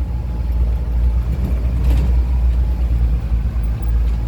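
ATV engine running, a steady low rumble.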